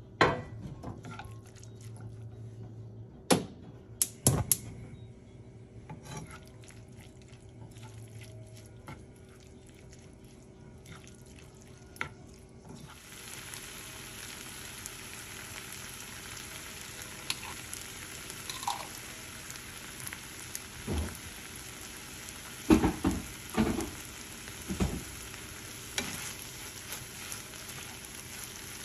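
A wooden spoon stirring ground meat in a skillet, with sharp knocks and scrapes against the pan. About halfway through, a steady sizzle of the meat frying comes in, and a few more loud spoon knocks come near the end.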